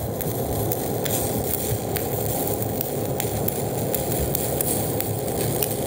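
Stick-welding arc from an E309L-16 stainless electrode on DC electrode positive at a little over 110 amps, a steady crackling sizzle as it lays a bead joining carbon steel to stainless.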